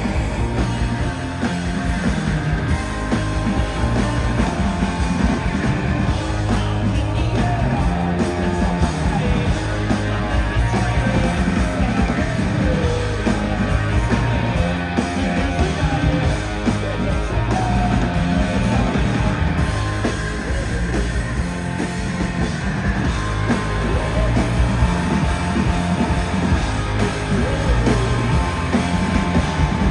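Punk rock band playing live: loud, dense drums, bass and guitar at a steady level, with singing over them.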